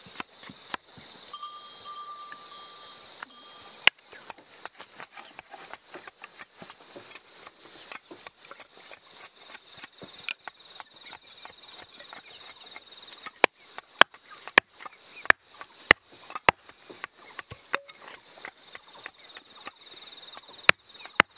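Irregular sharp knocks and taps, with a run of louder ones about two-thirds of the way through, over a faint steady high tone.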